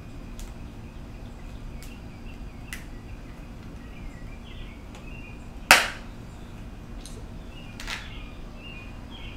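Sharp clicks and taps of small motorcycle taillight parts being handled and worked loose, with one loud snap a little past the middle and a smaller one near the end.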